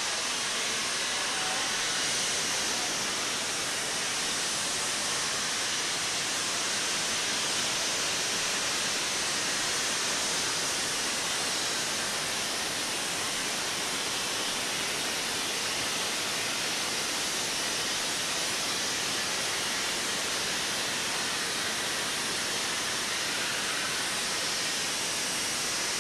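Standing steam locomotive hissing steam in a steady, unbroken rush, loud and high-pitched, with no chuffing.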